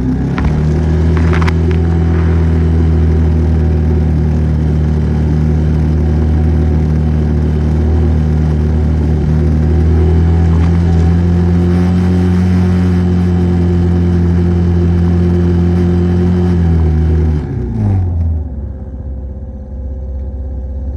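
ATV engine running at a steady pace under throttle, then dropping back to a low idle about 17 seconds in as the throttle is let off.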